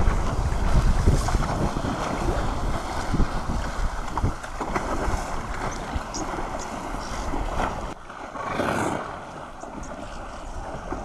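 Wind buffeting the microphone on the open river, a low, uneven rumble over the wash of water. It starts abruptly, eases about eight seconds in, swells briefly and then dies down.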